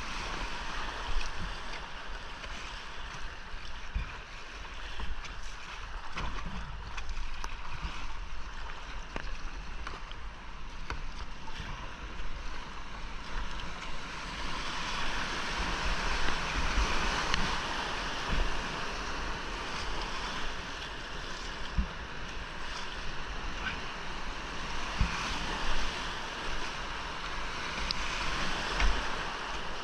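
Rushing whitewater of a creek rapid heard from a racing kayak, with scattered brief splashes and knocks. The rush grows louder about halfway through.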